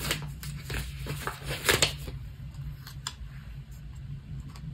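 Paper planner stickers being handled and placed on a page: a few short paper rustles and taps, the loudest a little under two seconds in, then lighter ticks, over a low steady hum.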